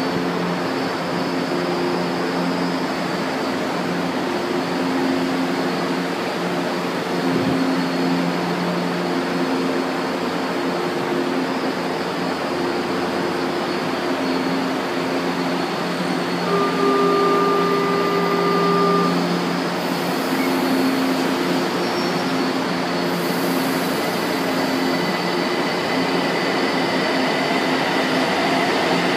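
São Paulo Metro Line 2 train moving along the platform, its motors humming steadily over continuous rolling noise. A short higher steady tone sounds about two-thirds of the way through.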